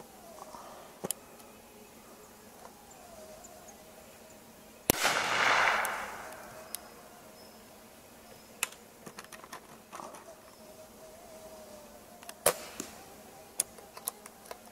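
Two shots from a Dressler 6 mm Flobert pistol, about seven and a half seconds apart. The first, about five seconds in, is a sharp crack followed by about a second of noise fading away; the second, near the end, is a single sharp crack. A few faint clicks fall between them.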